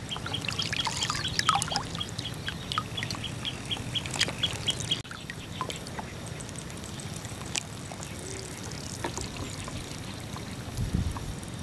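Water trickling and lapping around a wading angler, under a rapid, even series of short high chirps, about four a second, with a few other chirps. The chirping cuts off abruptly about five seconds in, leaving the water with scattered small clicks and a low thump near the end.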